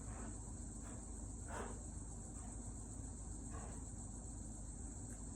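Steady, high-pitched insect chorus, with a few faint short scrapes about a second and a half in and again near the middle.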